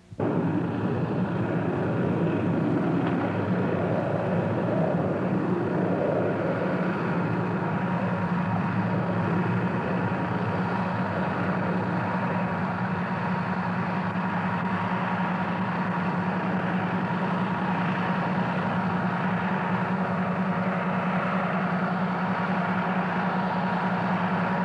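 Diesel generator running steadily: a loud, even engine drone with a strong low hum.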